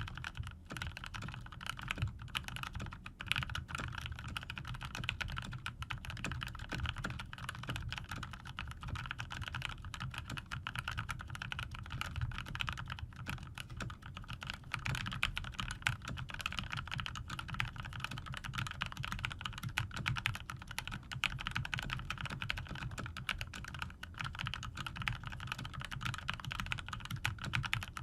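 Continuous fast typing on a tenkeyless mechanical keyboard with lubed GMTX red linear switches and PBT keycaps: a dense, steady stream of key clacks.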